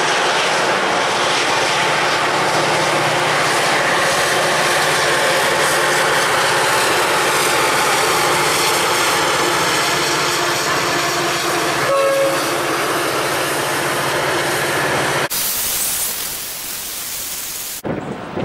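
Container freight train hauled by a diesel locomotive passing, its wagons clattering steadily over the rails with the locomotive's low hum beneath; a short pitched tone sounds about twelve seconds in. The sound cuts off abruptly near the end to wind noise on the microphone.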